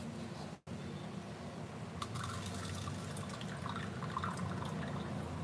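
Water splashing and dripping as rice is rinsed in a pot at a kitchen sink and the rinse water is poured off, with small scattered splashes.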